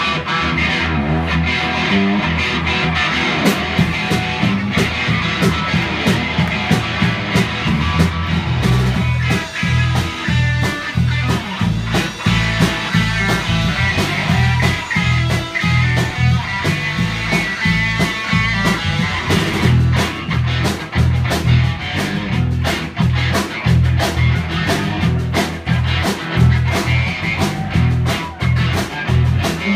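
Live rock band playing an instrumental passage: electric guitar, electric bass and drum kit over a steady, driving beat.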